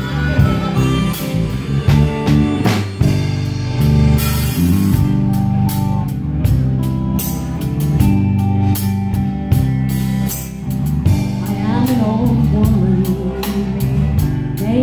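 Live band playing an instrumental passage: electric bass and electric guitar over a drum kit keeping a steady beat. A woman's singing voice comes in near the end.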